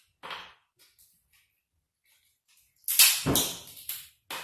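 King crab leg shell cracking and snapping as kitchen scissors cut through it. One sharp crack comes a fraction of a second in, a loud run of cracks about three seconds in, and one more near the end.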